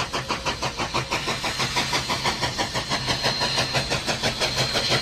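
Narrow-gauge steam locomotive No. 463 working hard while pulling a train, its exhaust chuffing in a fast, even beat of about five a second. A thin, high, steady tone joins about three seconds in.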